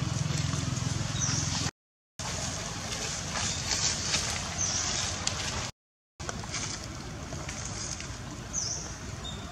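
Outdoor ambience: a steady noisy background with a low hum in the first couple of seconds, and three short high chirps that fall in pitch. The sound cuts to total silence twice, briefly.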